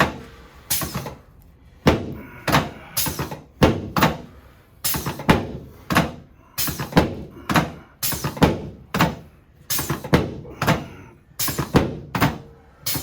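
A steady run of sharp thuds, about two a second, from a chiropractic adjustment on a patient lying face down on the treatment table.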